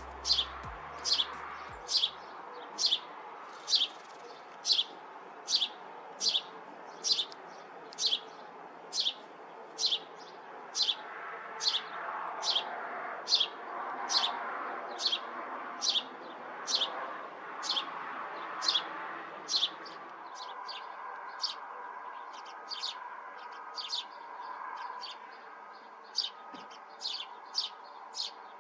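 Fledgling songbirds chirping: a long run of short, high chirps at about one or two a second that becomes more irregular about two-thirds of the way through, over a fainter background of other birds.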